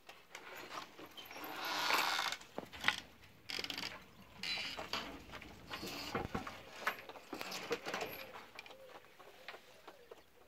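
A wooden aviary door with a chicken-wire panel being unlatched and pushed open: irregular rattling and scraping with sharp clicks and knocks, the loudest a little over two seconds in.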